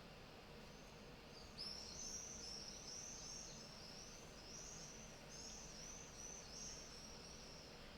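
Faint, rapid run of high chirps, about three a second, most of them from about a second and a half in, over a low steady room hiss. The chirps are most likely a small bird calling.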